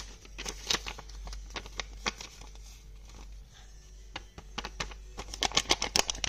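Paper rustling and crinkling as hands handle a folded paper packet and a sticky note. Near the end comes a quick run of crinkles as the sticky note is folded up.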